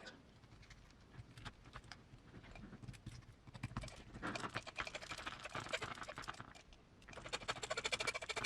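Fast, dense clicking and rattling from hand work on an RC crawler chassis, with small parts and a hand tool being handled. It comes in two stretches, one about four seconds in and one near the end, with scattered single clicks between them.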